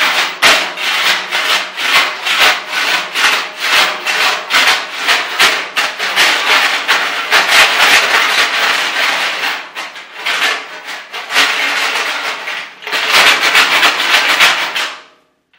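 Chain rattling and scraping around inside the old steel fuel tank of a 1976 Mazda Cosmo as the tank is shaken hard, in loud waves of rapid clatter that ease briefly near the end. This is the old trick of knocking rust and debris loose from the tank's inside before it is cleaned and sealed.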